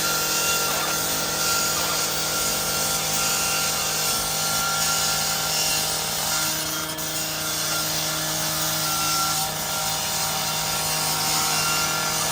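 Fire apparatus diesel engines running steadily, with a constant hiss over them.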